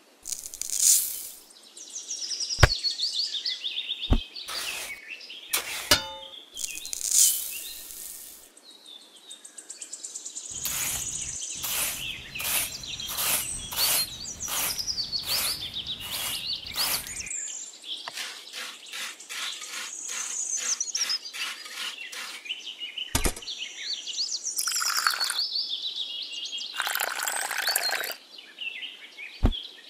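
Small birds chirping and calling throughout, over the scrape of a miniature shovel mixing dry soil and cement powder in quick repeated strokes for several seconds mid-way. There are a few sharp taps, and near the end a short pour of water onto the powder.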